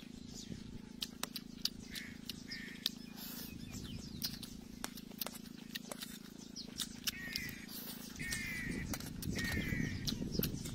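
Eating sounds: a fork clicking and scraping against a metal tray of fried noodles, with chewing, the mouth noise getting louder about eight seconds in.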